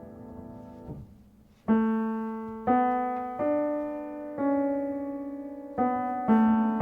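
Solo piano tuned to C=528 Hz, played slowly. A held chord fades and breaks off about a second in, then after a short pause single notes are struck about once a second, each left to ring and fade.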